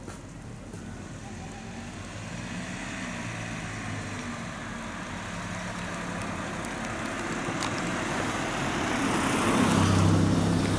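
A car driving up the road toward the listener. Its engine and tyre noise grow steadily louder and are loudest as it passes close by near the end.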